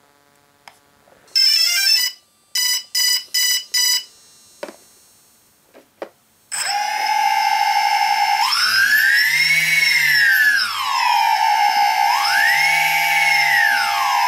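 DJI Phantom 2 Vision powering up: its T-Motor MN2214 brushless motors sound the ESC start-up beeps, a quick rising run and then four even beeps. About six seconds in the motors start spinning without propellers, a steady whine that twice rises in pitch and falls back as the throttle is raised and lowered.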